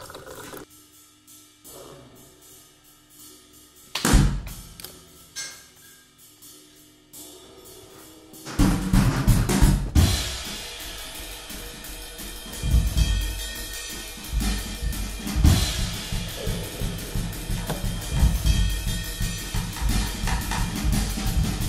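Background music with drums: a few sparse heavy hits at first, then a full drum-kit beat with cymbals kicks in about eight and a half seconds in and keeps going.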